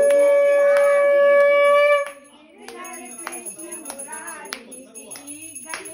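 Conch shell (shankh) blown in one long, steady note that cuts off suddenly about two seconds in, as it is sounded at the puja. After it, quieter voices with a few sharp clicks.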